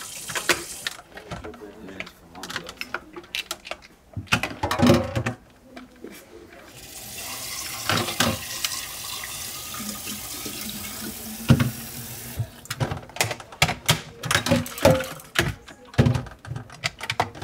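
Kitchen tap running into a stainless steel sink, water splashing into the black plastic lid of a pump-action airpot as it is rinsed. The water runs briefly at the start and again for about five seconds in the middle. Around it come many sharp clacks and knocks as the plastic lid and steel flask are handled.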